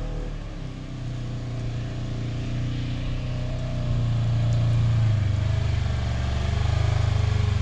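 Engine of a side-by-side utility vehicle running as it drives up and grows louder, its note dropping slightly about five seconds in as it slows.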